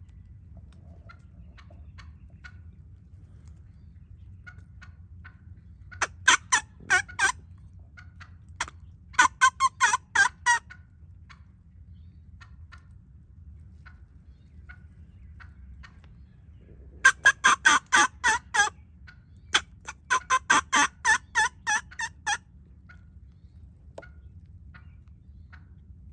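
Wild turkey calling: four runs of loud, evenly spaced yelp-like notes, coming in two pairs about ten seconds apart.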